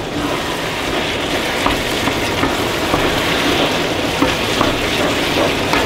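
Wild mushrooms and vegetables sizzling in a cast-iron pan while a wooden spoon stirs them, with small scrapes and knocks of the spoon against the pan now and then. The steady sizzle is the moisture just about cooked out of the mushrooms.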